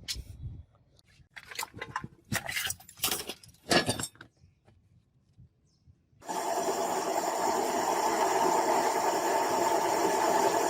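A few sharp knocks or clanks, then after a short pause a machine starts abruptly about six seconds in and runs steadily.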